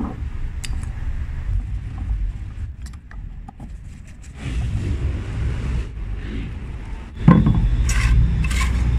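Small metal clicks and scrapes as a hand tool turns screws back into an EGR valve on a workbench, over a steady low hum. About seven seconds in, a louder clatter of metal parts being handled.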